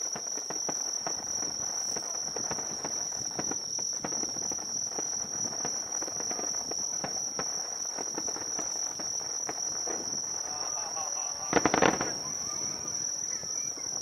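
Insects singing in a steady high trill, with scattered faint pops of fireworks; about eleven and a half seconds in, a burst of rapid firework crackling is the loudest sound.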